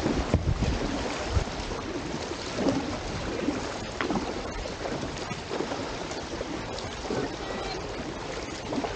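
Kayak paddle blades splashing into flat river water stroke by stroke as the boat moves along. Wind buffets the microphone, with heavier gusts near the start.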